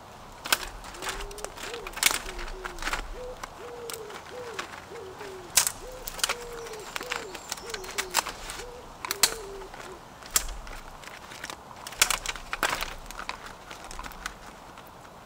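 A pigeon cooing: a run of short, soft, low notes that carries on for most of the first ten seconds, then stops. Scattered sharp clicks and cracks sound throughout.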